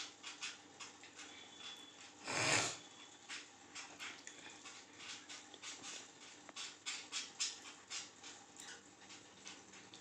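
Young budgerigars chattering in many short, quick chirps, with one brief louder noise about two and a half seconds in.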